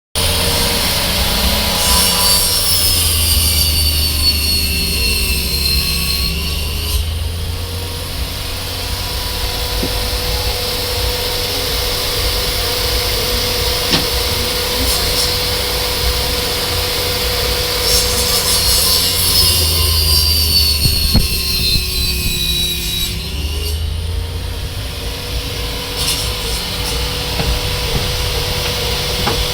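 Table saw running steadily and making two rip cuts through wood. During each cut a high whine drops slowly in pitch as the blade takes the load; the first cut starts about two seconds in, and the second comes past the halfway point.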